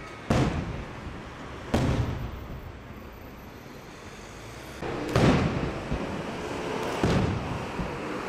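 Aerial firework shells from the 12th May Fireworks Factory bursting overhead. Two booms about a second and a half apart, a pause of about three seconds, then two more about two seconds apart, each trailing off in a rumble.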